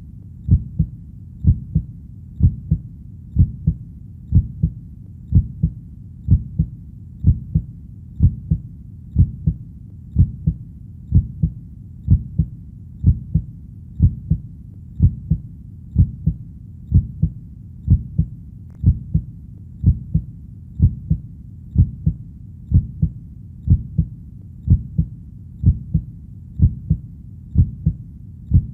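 Heartbeat: low double thumps (lub-dub) repeating steadily at about one beat a second.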